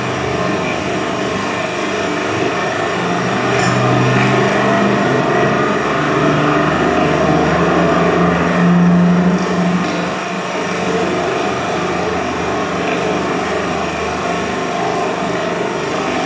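Many fountain jets splashing steadily into the water of the basin, a dense rushing hiss. A low hum rises beneath it in the middle and fades again.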